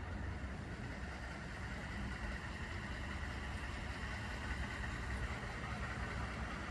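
A vehicle engine idling: a steady low rumble with a faint, even higher hum.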